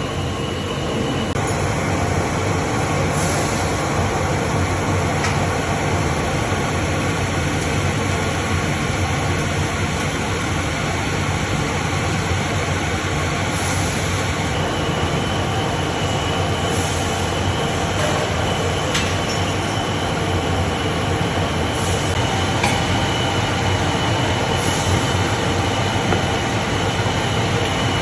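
Factory machinery at a CNC glass-cutting line running steadily, with a thin high whine that drops out about a second in and returns about halfway through, and a few faint ticks.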